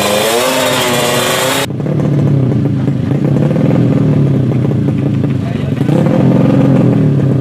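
Tuned 130cc four-stroke underbone drag bike engine running at the start line, with its pitch rising and falling as it is revved. A voice can be heard over it, and for the first second and a half there is a louder, hissy mix of voice before a sudden cut.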